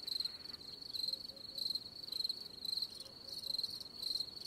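Insects chirping in the manner of crickets: a steady high trill that swells in pulses about twice a second.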